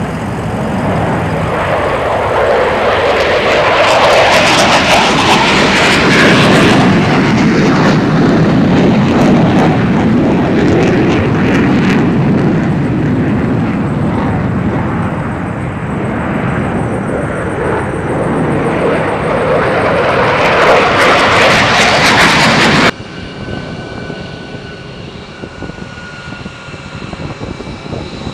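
Military fighter jet engine noise, very loud, swelling as jets pass overhead twice and easing between passes. About 23 seconds in it cuts abruptly to a much quieter, steady jet engine hum with faint whining tones.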